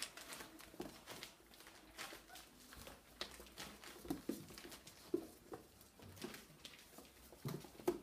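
Puppies' claws clicking and pattering on a wooden floor as they scramble about, with a few short, high puppy squeaks about four to five seconds in.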